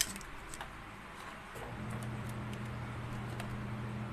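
Light metallic clicks and taps of a long screwdriver working on a small blender motor part, with a sharper click at the start. A low steady hum comes in about two seconds in and continues.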